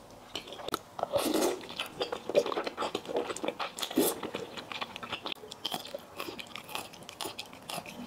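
Close-miked slurping and wet chewing of thick, sauce-coated potato noodles, full of small sticky clicks, with louder slurps about a second in and again around four seconds.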